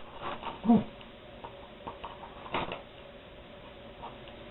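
Faint rustling and light clicks of items being handled while unpacking a parcel, with a sharper click about two and a half seconds in.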